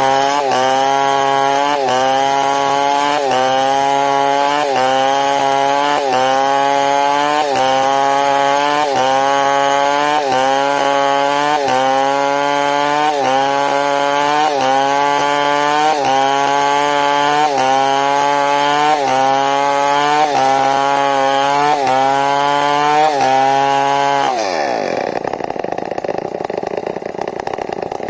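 New West 070 large two-stroke chainsaw running at full throttle while cutting into wood, its pitch dipping and recovering about once a second. Near the end the throttle is released and the engine drops to idle.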